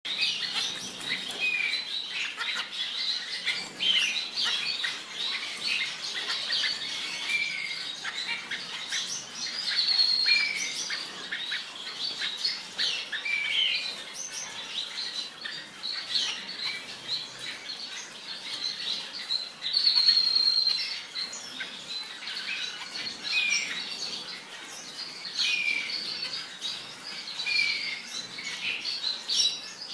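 Small cage finches chirping and calling without pause, several birds at once with short high calls, some sliding downward in pitch.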